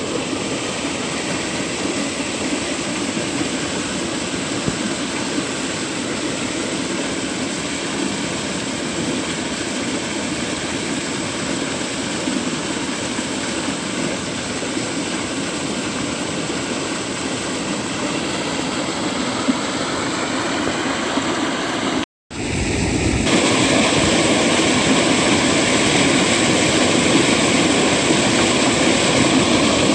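Water gushing from an irrigation pipe outlet into a canal, a steady loud rushing. After a brief cut about two-thirds of the way through, the rush is louder and closer.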